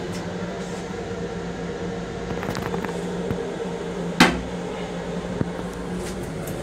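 Steady hum of an M7 railcar running, heard inside its small restroom. About four seconds in, a single sharp plastic clack, the toilet lid shutting onto the seat, with a smaller click about a second later.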